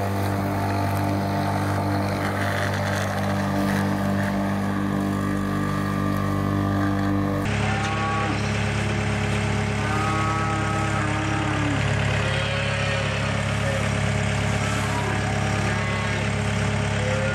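Corded electric lawn mower running steadily. About seven and a half seconds in, the sound switches abruptly to a wheel loader's engine idling while cattle moo several times.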